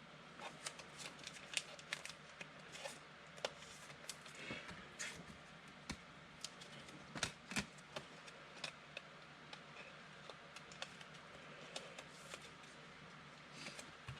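Football trading cards being handled and sorted by hand: faint, irregular clicks and slides of card stock against card, busier in the first half and sparser after.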